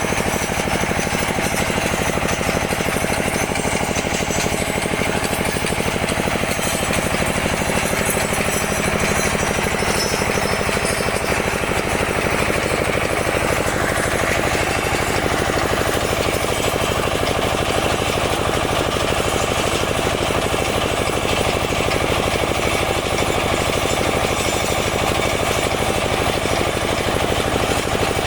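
Small soil-testing drill machine running continuously at a steady level, with a fast, even pulsing chatter.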